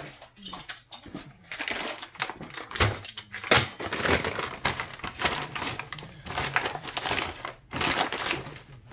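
A brown paper bag crinkling and rustling as hands dig through it, with new metal bolts clicking and clinking together inside, the sharpest clicks about three seconds in.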